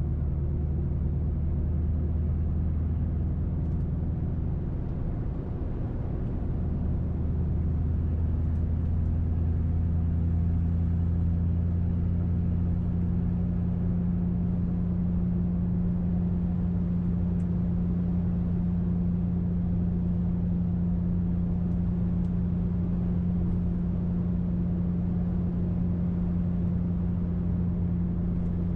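2005 Mercury Grand Marquis 4.6-litre V8 cruising with a muffler-delete exhaust (catalytic converters into an H-pipe, no mufflers): a steady low drone with road noise. The drone shifts slightly about five seconds in, then holds steady.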